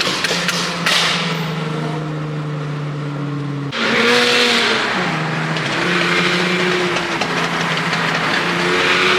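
Car engine running at a held speed, its pitch steady for a few seconds at a time and then shifting, with a sudden change about four seconds in.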